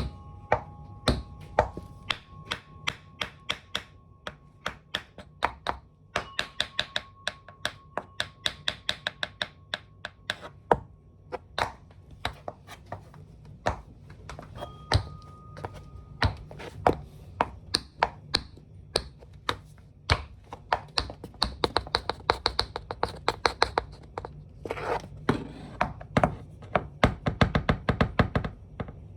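Metal taps of tap shoes striking a hard floor: sharp clicks in irregular runs, with quick flurries of several taps a second.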